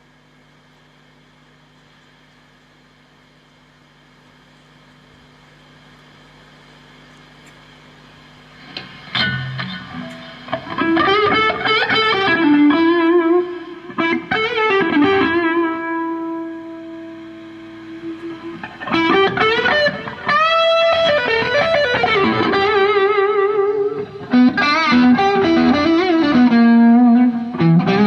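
Electric guitar played through effects pedals. After a stretch of faint held hum, a sharp pick attack about nine seconds in starts melodic lead phrases with string bends and long sustained notes.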